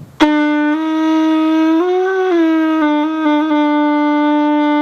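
Lip-buzzed chirimía-style horn with no reed or mouthpiece, blown like a conch trumpet, sounding one long held note rich in overtones. It starts abruptly, the pitch rises briefly about two seconds in, then it settles back to the same steady tone.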